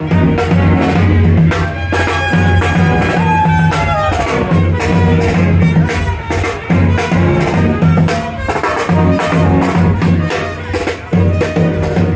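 Street brass band playing: brass horns over a repeating low bass line, with drums beating steadily. One horn slides down in pitch about four seconds in.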